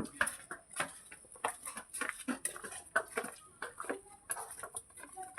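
Short, irregular animal calls mixed with clicks and knocks, coming thick and fast.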